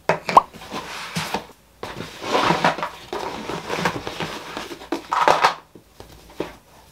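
Jute tote bag rustling as it is handled and packed, with a few light knocks of objects being picked up and put into it.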